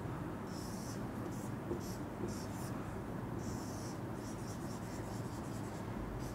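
Marker pen rubbing across a whiteboard in a run of short drawing strokes, with a quicker, choppier run of strokes a little past the middle as a zigzag spring is drawn.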